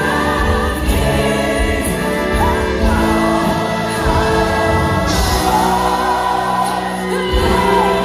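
Large church choir singing with instrumental accompaniment and a steady low beat.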